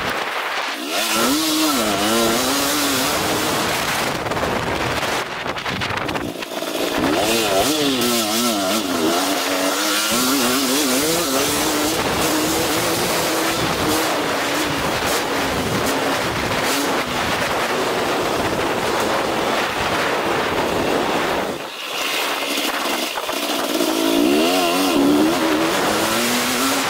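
A 2023 KTM 250 SX-F's four-stroke single-cylinder engine revving up and down as the rider works the throttle around a motocross track, the throttle shut off briefly a few times, with wind rushing over the camera microphone.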